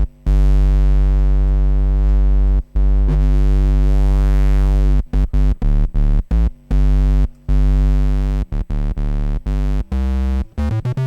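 Reveal Sound Spire software synthesizer playing a heavily distorted square-wave bass patch, filtered and boosted in the low end: two long held low notes, then a run of short staccato notes that get quicker near the end.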